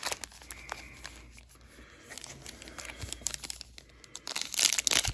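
Trading-card pack wrapper being handled: a few soft rustles, then dense crinkling and tearing of the wrapper from about four seconds in.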